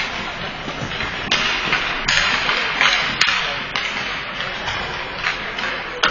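Ice rink noise: hockey skate blades scraping and cutting on the ice, with scattered sharp knocks.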